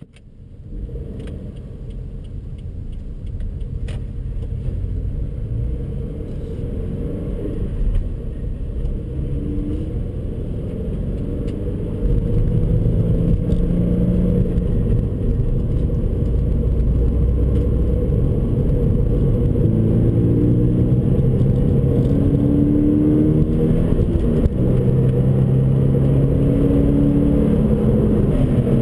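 Toyota 86's 2.0-litre flat-four boxer engine heard from inside the cabin, driving out of the pit lane onto the circuit. It gets louder about twelve seconds in, and in the last third the engine pitch rises in several sweeps as the car accelerates through the gears.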